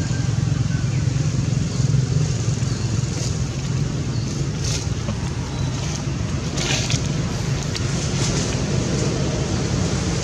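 Steady low outdoor rumble, with a couple of brief rustles about halfway through.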